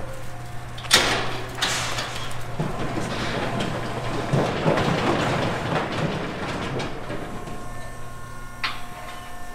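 Steel pen gates and panels clanging and rattling: a sharp bang about a second in, rattling for several seconds, and a smaller knock near the end, over a steady low hum.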